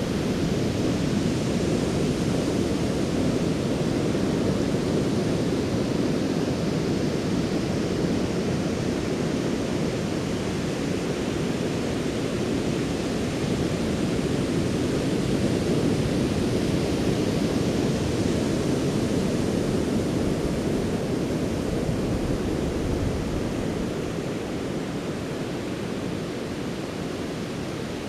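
Ocean surf breaking and washing on a beach shore, a steady, continuous wash of waves that eases a little near the end.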